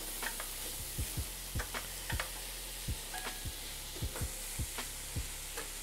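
Onion and fresh spinach sizzling in a skillet as the spinach wilts down. A utensil clicks against the pan every half second or so as they are stirred.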